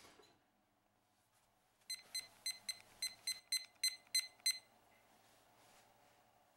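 Polder digital probe thermometer beeping about ten times in quick succession, roughly four short high beeps a second, as its button is pressed repeatedly to step the set temperature up to 120°F.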